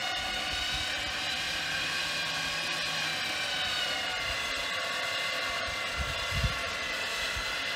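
Electric winch on the front of a Jeep Wrangler reeling in its line under load as it pulls a second Jeep out, a steady high whine. A couple of low thumps about six seconds in.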